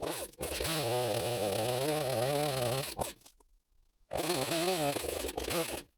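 Small single-cylinder two-stroke chainsaw running under load in a cut through rock-hard white oak, its pitch wavering as the engine bogs and recovers. The sound stops abruptly about three seconds in and returns about a second later, then stops abruptly again near the end.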